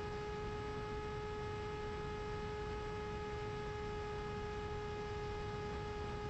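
Steady whine of a Mini Drak flying wing's electric motor and pusher propeller holding one constant pitch in flight, heard from the onboard camera over a rough rumble of wind rushing past it.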